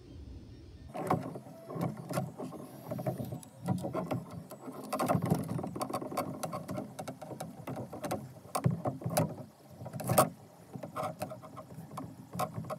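Handling noise from fitting 3D-printed plastic generator parts onto steel frame rods: irregular clicks, taps and sliding knocks of plastic and metal, with a sharper knock about ten seconds in.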